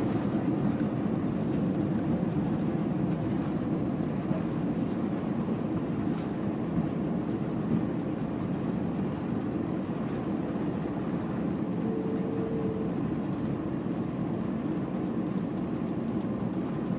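Steady low rumble inside a jet airliner's cabin as it rolls on the ground after landing, easing off slightly. A brief faint tone sounds about twelve seconds in.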